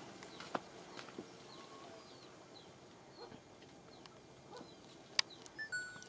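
Faint outdoor background with a few short, high bird chirps and scattered light clicks; a single sharp click about five seconds in is the loudest sound.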